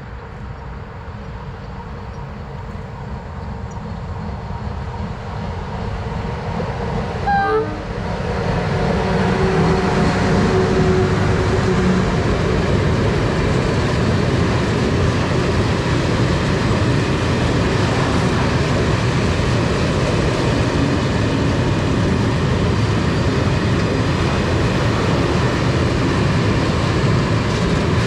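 A train approaching, growing louder, with a short horn blast about seven seconds in. It then passes close by with a loud, steady rumble of wheels on rails.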